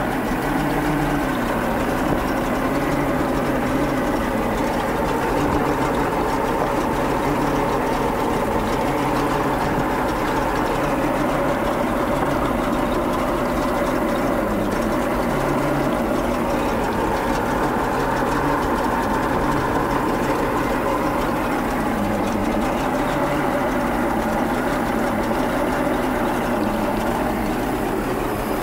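MerCruiser 305 V8 marine engine idling steadily, with cooling water spraying out of its block, which has fractured along the side from improper winterization.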